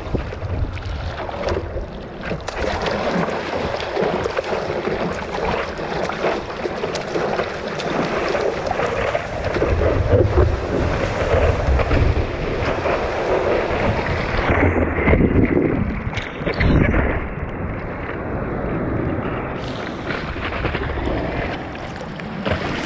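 Seawater rushing and splashing against a surfboard, heard from a microphone on the board, with wind buffeting the microphone. It gets louder while the board rides a breaking wave near the middle, and the sound turns dull for a few seconds after that.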